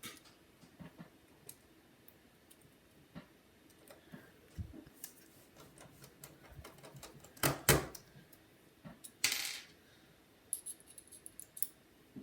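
Scattered clicks and clatters of small tools and parts being handled, with the loudest knocks about seven and a half and nine seconds in and a quick run of light ticks near the end.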